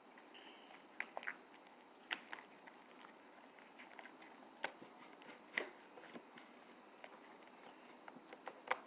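Sticky slime being kneaded and pulled from a table, giving scattered soft clicks and pops, a few seconds apart.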